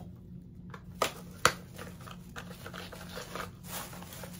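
Packaging of a camera car mount being opened by hand: two sharp snaps about a second in, then light rustling and crinkling.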